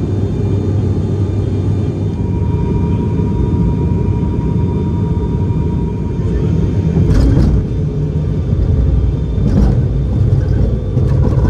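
Cabin noise of a turboprop airliner descending to land: the steady drone of its engines and propellers, with two brief knocks about seven and nine and a half seconds in.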